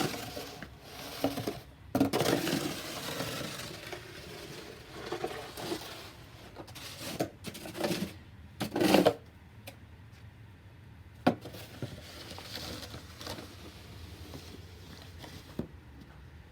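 Snow shovel scraping and pushing snow across concrete in several uneven strokes, the loudest about two seconds in and about nine seconds in, with a single sharp knock about eleven seconds in.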